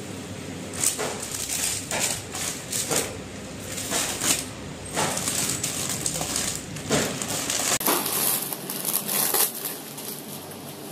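Plastic courier mailer bag and clear polythene packet crinkling in irregular rustles as they are handled and opened.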